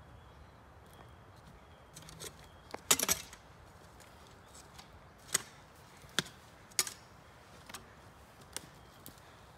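An axe chopping wood: a series of sharp, irregularly spaced strikes, about seven in all, with the loudest cluster about three seconds in.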